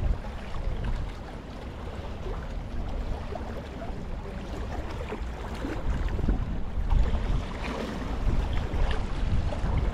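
Wind buffeting the microphone, with small waves lapping and splashing against the shoreline rocks; the gusts grow stronger in the second half.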